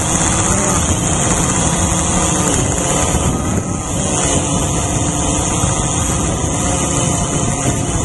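Drone's electric motors and propellers heard close from the camera mounted on the drone as it hovers: a steady whine made of several pitches together, with a strong high hiss over it.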